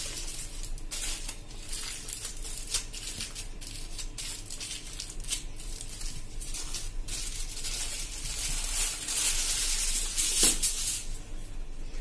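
Aluminium foil crinkling and crackling as it is crushed and pressed around a banana, with a louder, longer crackle near the end as a fresh sheet is pulled off the roll.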